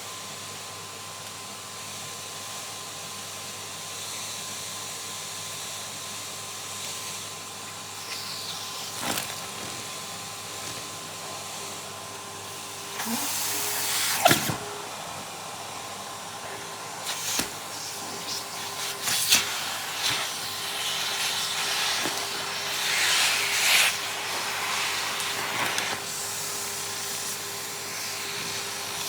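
Vacuum cleaner running steadily with a constant motor whine, broken by several bursts of hissing and rattling as pieces of old nitrile gloves are sucked through the hose; the loudest burst comes about 14 seconds in.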